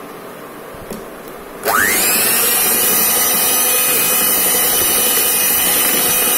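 Electric hand blender switched on about a second and a half in, its motor whining quickly up to speed and then running steadily at high speed as it beats cake batter in a bowl.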